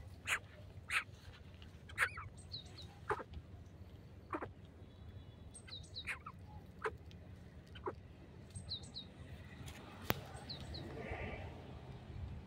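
Brief high bird chirps, often in pairs, every few seconds, over irregular sharp clicks and taps.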